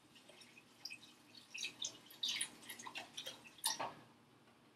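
Chicken broth poured from a carton into a pot, glugging and splashing in uneven spurts that stop just before the end.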